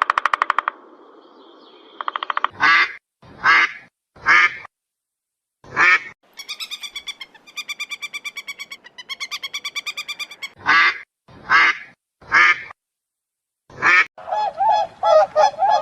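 Duck quacking: loud single quacks spaced about a second apart, broken by long runs of rapid quacks. About fourteen seconds in, goose honking takes over.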